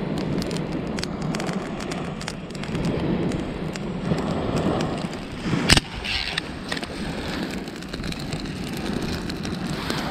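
Wind buffeting the microphone over waves washing onto a pebble shore, with scattered small clicks and crackles as driftwood kindling is handled. One sharp, louder click about six seconds in.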